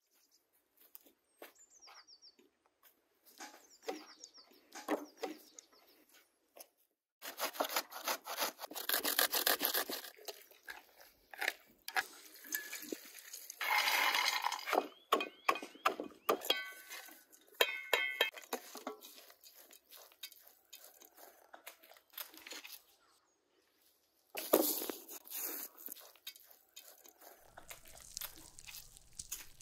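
Food being prepared by hand: irregular clicks, crunches and rustles of walnuts and fish stuffing being handled, loudest in stretches about eight and fourteen seconds in, with a few high chirps in the first few seconds.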